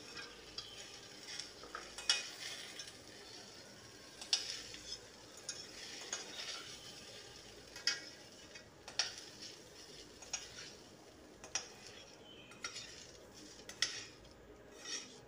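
A steel spatula scrapes and clinks against a metal kadhai as fried okra is scooped out, in irregular strokes with a sharper clink every second or two. Under it is a faint sizzle of the hot pan.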